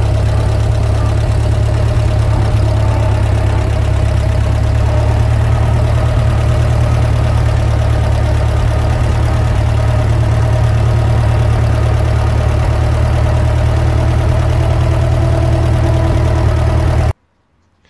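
Ford Model A four-cylinder flathead engine of a homemade tractor running steadily as the tractor crawls along in its creeper gear. The sound cuts off suddenly near the end.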